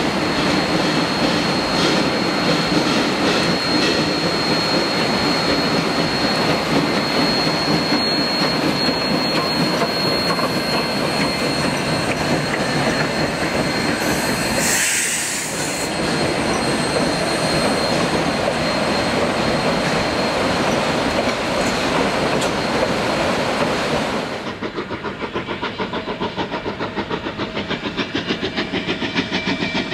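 Narrow-gauge steam train's coaches rolling over a steel truss bridge: a steady clatter of wheels on rail joints with a thin, high squeal. About 24 seconds in it cuts to a steam locomotive working slowly, its exhaust beating in a quick, even rhythm.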